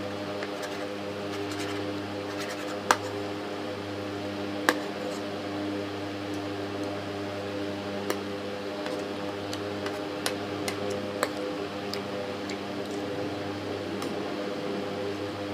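Metal spoon clinking and scraping against a ceramic plate as someone eats, with two sharper clinks about three and five seconds in and lighter ones later, over a steady low hum.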